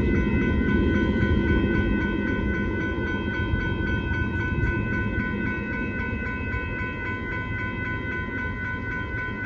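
Union Pacific empty coal train's hopper cars rolling past a grade crossing in a steady rumble, with the crossing's warning bell ringing over it as a steady high ring.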